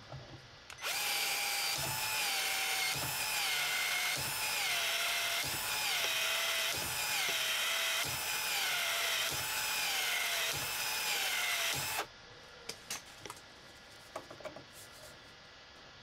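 Cordless PEX expansion tool running for about eleven seconds in about nine repeated strokes, roughly one every second and a quarter: each time the motor pitch dips under load and recovers, with a click, as the expander head stretches the end of the PEX tubing to take a fitting. The tool cuts off suddenly, and a few light clicks and handling knocks follow.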